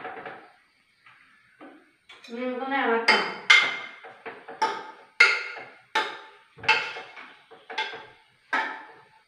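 Metal spoon knocking against a stainless steel saucepan while stirring: from about three seconds in, a run of sharp ringing clinks, roughly two a second.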